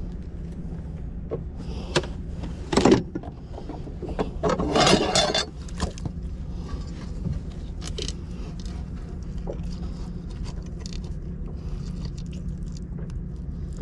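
Scrapes, knocks and light clicks of a freshly caught bass being handled and laid out to be measured against the 14-inch minimum. A sharp knock comes about three seconds in and a longer rattling scrape around five seconds in, over a steady low hum.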